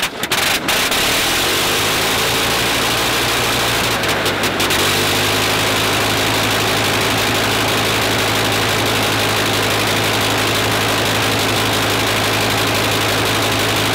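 Sopwith Snipe biplane engine catching on a hand-swung propeller start. It sputters for about a second, then settles into a steady run, its pitch rising over the first few seconds as it picks up speed.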